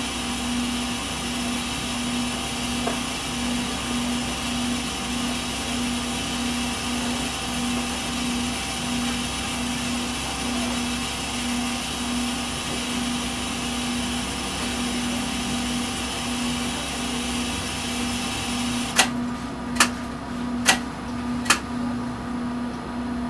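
Steady machine hum and hiss inside a stopped Hiroshima Electric Railway tram, with a low tone pulsing evenly on and off. Near the end there are four sharp clicks, each under a second after the last.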